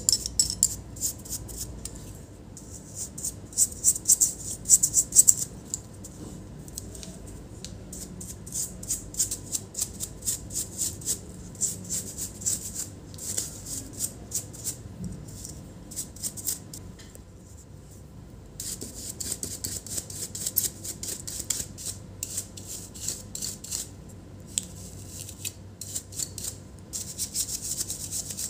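A brush sweeping dust out of the thin aluminium fins of a laptop heatsink: a fast run of light ticks and scratches, stroke after stroke, pausing for about a second and a half just past the middle.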